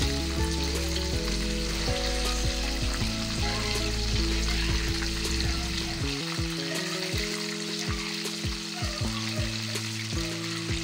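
Battered fish pieces sizzling and crackling steadily as they fry in hot oil in a nonstick pan, with a metal spatula moving them now and then. Background music with low notes and a beat plays underneath; the beat comes in a little past halfway.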